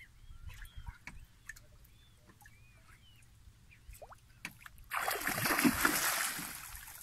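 Hooked king mackerel thrashing at the surface beside the boat: a sudden loud burst of splashing about five seconds in that fades over about a second and a half.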